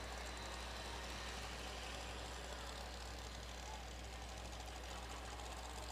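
Faint, steady idle of a hot-rod coupe pulling truck's engine, with a constant low hum underneath.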